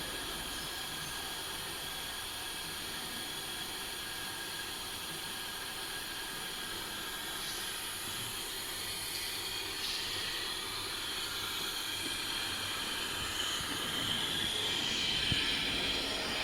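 Water running steadily with a hiss, a little louder over the last few seconds.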